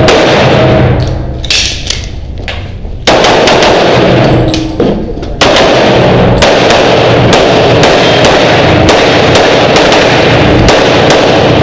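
Rapid pistol shots fired in an indoor range, the reports running together in the room's echo, with two short lulls in the first half while the shooter moves.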